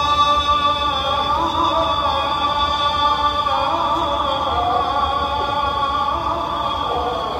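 Adhan, the Islamic call to prayer, chanted by a muezzin over the mosque's loudspeakers: long, drawn-out melodic phrases with a slowly wavering pitch, the held notes blurring into one another.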